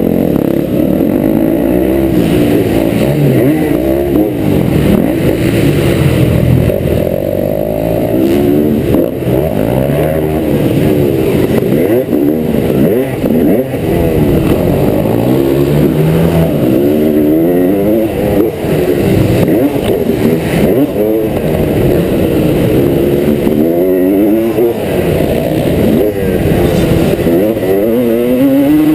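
2003 Honda CR250R single-cylinder two-stroke engine heard from on board while ridden hard round a dirt track. It revs up and drops off over and over, every couple of seconds, through corners and down a straight.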